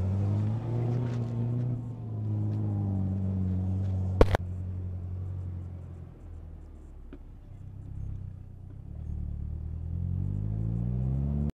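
Pickup truck engine running as it drives off across dirt, growing fainter past the middle, then louder again near the end with a rising pitch as it revs. One sharp knock about four seconds in.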